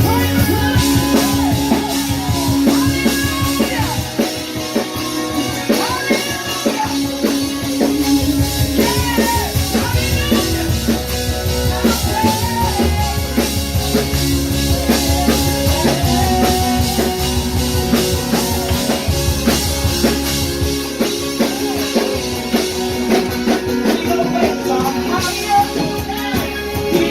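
Live worship band playing a song, with drum kit and guitar and voices singing over it.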